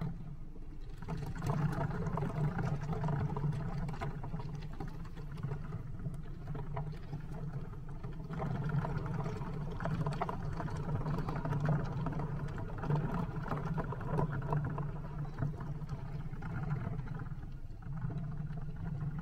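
Thousands of water-gel beads (Orbeez) squishing and spilling out of a cut-open rubber balloon into a glass bowl. They make a dense run of small wet clicks and patters as they roll against each other and the glass, over a steady low hum.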